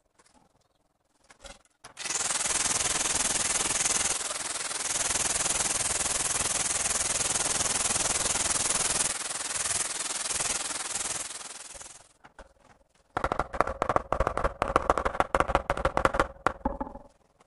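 Angle grinder with a diamond blade cutting through a ceramic tile for about ten seconds, then stopping. A few seconds later a mallet taps a wall tile into place in a quick run of ringing knocks.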